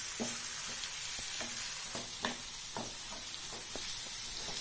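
Chopped onions, green chillies and tomatoes sizzling in hot oil in a non-stick kadai as they are sautéed, with a steady hiss. A wooden spatula stirs them, knocking and scraping against the pan about seven times.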